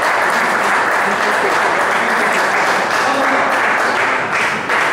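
Spectators applauding after a point in a table tennis match: steady clapping that dies away near the end.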